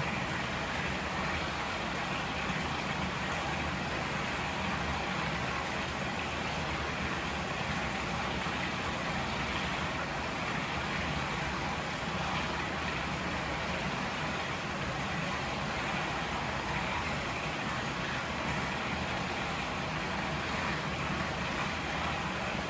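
Steady rush of river water flowing, an even noise that neither rises nor falls.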